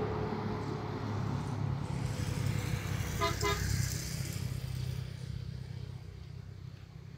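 A road vehicle's engine passing close by, then fading away over the last couple of seconds, with two short horn toots about three seconds in.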